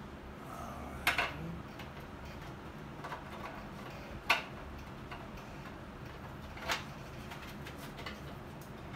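Three sharp clicks, about a second, four seconds and nearly seven seconds in, with a few fainter taps between, as a fuel hose and check valve are worked by hand inside a motorcycle fuel tank's opening.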